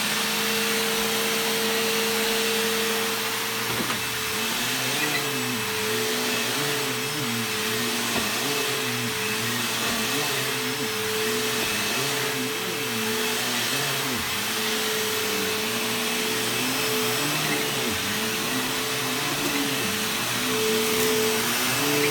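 Bissell bagless upright vacuum cleaner running on carpet, a steady motor hum and airflow hiss. From about four seconds in, the motor's pitch wavers up and down as the vacuum is pushed back and forth.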